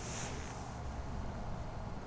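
Steady low rumble of outdoor background noise, with a brief burst of hiss in the first half second.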